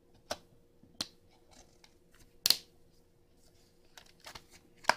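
Several sharp plastic clicks from a multi-disc DVD case being handled: a disc on its centre hub and the case snapping shut. The loudest click comes about two and a half seconds in, and another just before the end.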